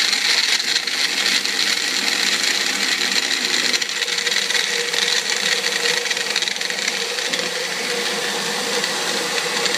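Magic Bullet personal blender motor running steadily with its cup held down on the base, a continuous whirr with a faint whine that rises slightly in pitch as it blends.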